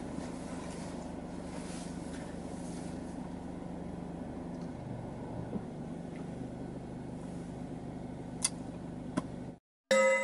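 Car engine running, heard from inside the cabin as a steady low hum that shifts in pitch about halfway through, with two sharp clicks near the end. The hum cuts off abruptly and chiming glockenspiel-like music starts at the very end.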